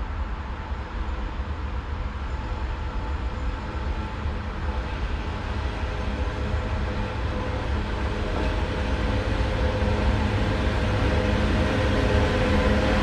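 Rail Polska 207E diesel locomotive hauling a freight train of coal wagons as it approaches, a steady engine drone and rumble growing gradually louder.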